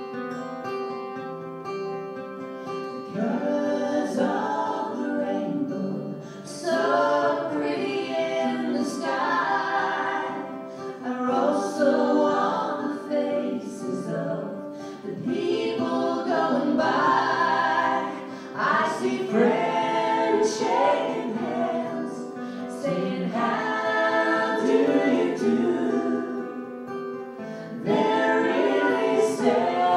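Live acoustic performance of a song: two acoustic guitars playing, joined about three seconds in by several voices singing together in harmony.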